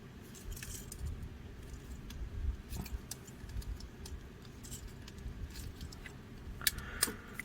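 Small clicks and rattles of a transforming robot toy's metal parts as its feet and leg joints are handled and folded into place, with a few sharper clicks about three seconds in and near the end.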